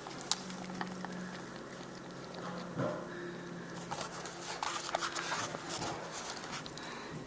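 Domestic cat lapping water from a bowl: irregular runs of small wet clicks, busiest about four to six seconds in, over a low steady hum.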